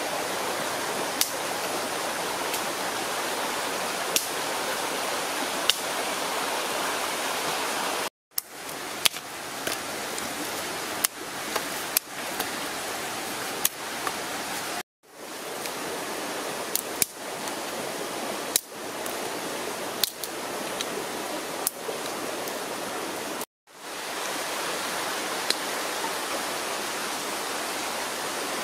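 Steady rushing noise, like water running, with sharp clicks every second or so as dry sticks are handled and laid for a fire. The sound cuts out completely three times and fades back in.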